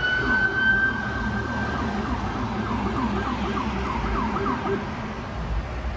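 Emergency vehicle sirens from an approaching ambulance and police car: a long rising wail, then a fast yelp of about three sweeps a second that stops about five seconds in, over a low rumble.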